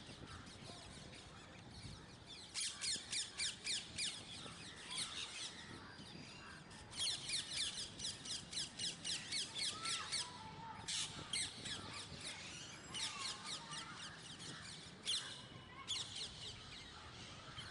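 Parrots calling in repeated runs of short, high, squawking calls, about five a second, breaking off and starting again several times.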